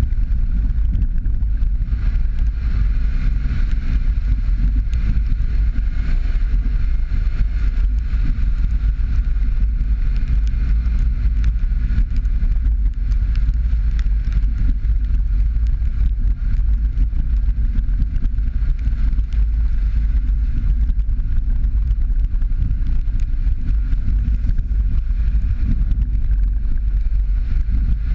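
Jeep Patriot driving along a rough dirt and gravel trail: a steady low rumble of tyres and running gear, with wind on the microphone.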